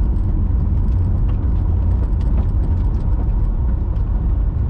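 Car driving, heard from inside the cabin: a steady low rumble of engine and tyre road noise with a few faint light ticks.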